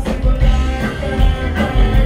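Live reggae band playing: harmonica over electric guitar, upright bass and drums.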